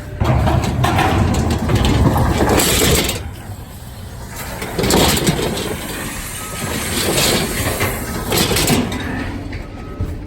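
Loose scrap metal clattering and scraping as it is unloaded, in several loud bursts over a low rumble.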